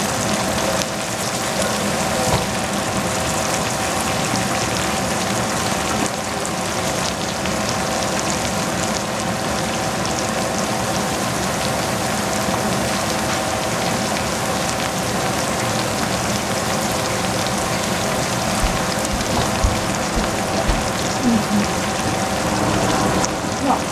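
Shredded cabbage sizzling and crackling in a hot stainless steel saucepan, a steady rain-like patter over a faint steady hum.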